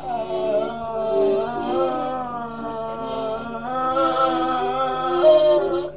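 A dog howling along to a Hohner accordion: long, wavering howls held over the accordion's sustained chords.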